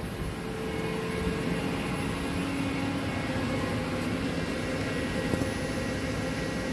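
Steady machine hum and whir of a powered-up DMG MORI NLX2000SY CNC turning center, with a few faint steady tones that come and go.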